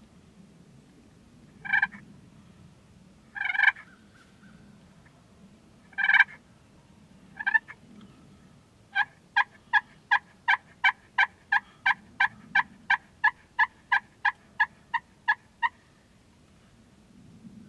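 Wild turkey gobbling four times in the first eight seconds, each a short rattling burst. It is followed by a long, even run of about twenty turkey yelps at roughly three a second, which stops shortly before the end.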